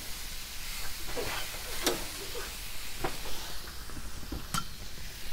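Marinated chicken skewers sizzling on a hot gas grill grate, a steady hiss broken by a few sharp clicks of metal tongs against the skewers and grate.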